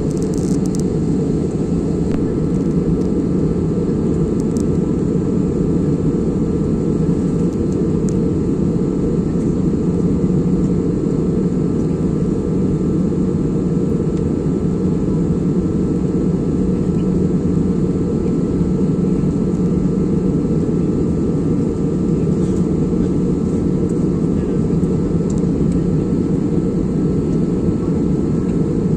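Steady cabin noise of a jet airliner in flight: an even, low rush of engine and airflow, with a faint steady whine above it.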